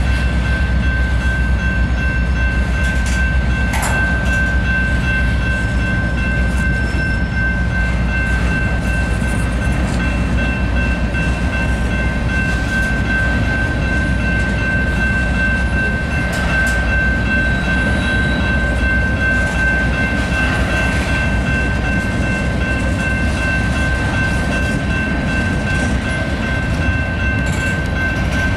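Freight cars of a Canadian National mixed train rolling past at a grade crossing: a steady, loud rumble of wheels on rail, with a constant high-pitched tone running through it.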